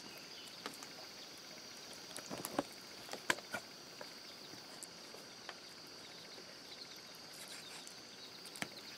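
A few faint, scattered knife taps and cuts on a wooden chopping block as meat is cut up, the clearest about three seconds in. A steady high-pitched insect drone runs behind them.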